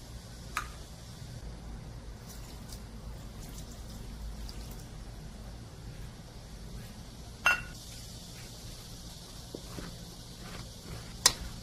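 Water poured from a cup into a mixing bowl of ground pork, diced eggplant and starch. A few light clicks of handling come before it, and a sharp clink of the cup against the bowl sounds about seven and a half seconds in, the loudest moment.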